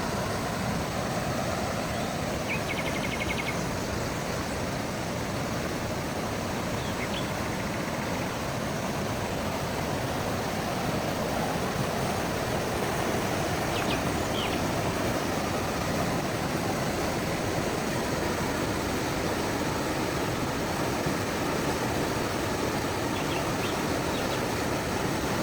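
Steady outdoor background rumble, with a few short bird chirps over it: a brief trill about two seconds in, and single chirps later on.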